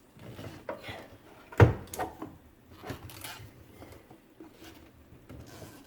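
Handling clatter from work on a garbage disposal's mounting under a kitchen sink: scattered clicks and scrapes, with one sharp knock about a second and a half in.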